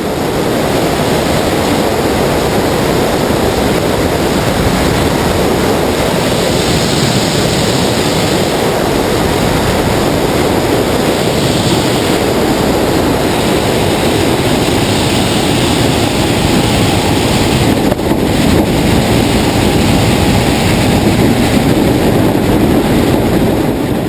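Steady rush of wind on the microphone of a camera mounted on an HM-1000 Balerit ultralight's wing in flight, blended with the aircraft's engine and propeller running.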